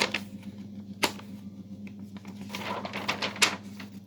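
Clicks, knocks and rustling as a camera is picked up and repositioned by hand. There is a sharp click about a second in and a cluster of clicks near the end, over a steady low hum.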